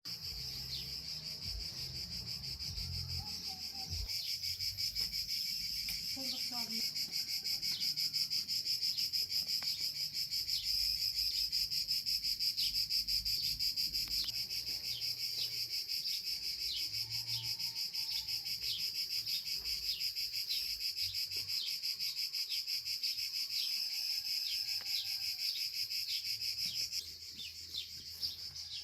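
A steady chorus of crickets or similar insects, shrill and continuous, with a regular faint ticking running under it and a few faint bird chirps.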